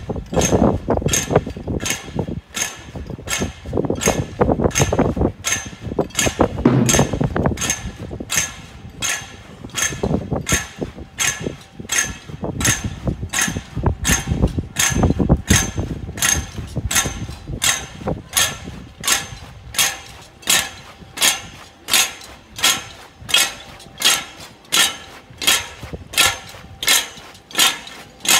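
Regular clacking in a steady marching rhythm, about three strokes every two seconds, from the approaching procession float and its bearers. It becomes cleaner and more even in the second half, with a duller rumble beneath it in the first half.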